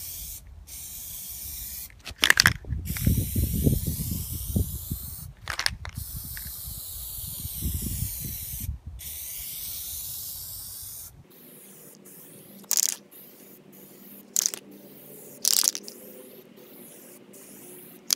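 Aerosol can of Plastidip rubber coating spraying in long hissing passes broken by short pauses. The spraying stops about eleven seconds in, and a few brief sharp sounds follow.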